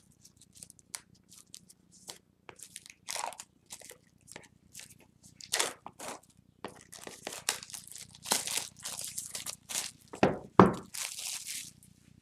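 Plastic shrink-wrap being torn open and crinkled off a boxed card deck: irregular crackling and crunching that grows denser in the second half, with two louder knocks from handling the box near the end.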